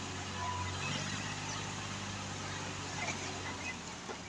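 Tractor engine running steadily, driving the hydraulic tipper of a trailer loaded with bricks, with a few faint knocks near the end.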